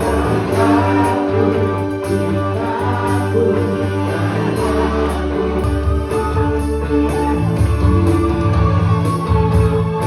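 Live band playing amplified music through a PA system, with guitar and a bass line over a steady beat.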